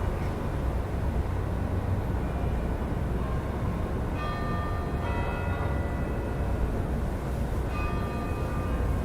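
Steady low rumble of city traffic heard through an open window at night, with clusters of several steady high-pitched tones sounding together about four to six seconds in and again near eight seconds.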